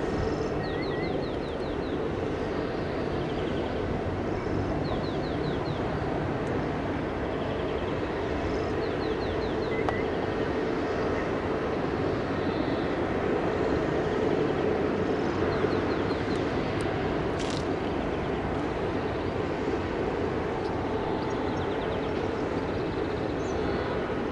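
Airbus A321neo jet engines running with a steady, even rumble and a held whine. Small birds chirp briefly several times over it.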